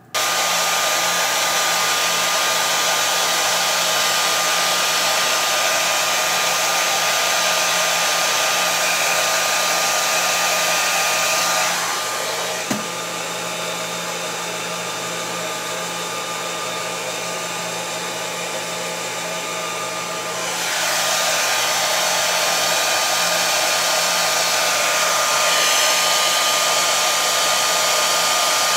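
Handheld hair dryer switched on and running steadily with a thin, steady whine, blowing over freshly applied lace spray on a wig's lace. About twelve seconds in its sound turns lower and duller for some eight seconds, then comes back up to full.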